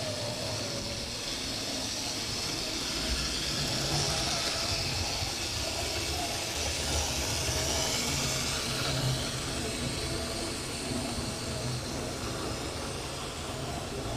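Electric model railway locomotive running on the track with a train of coaches: a steady, slightly wavering motor whine over the rumble of wheels on the rails, with a high hiss.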